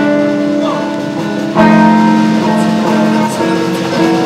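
Live band music with guitar: held chords that change twice.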